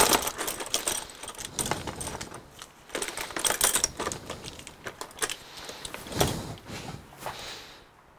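Rapid clicking and rattling of small hard objects being handled, in clusters, with the loudest clatter at the very start and again about three and six seconds in, dying away near the end.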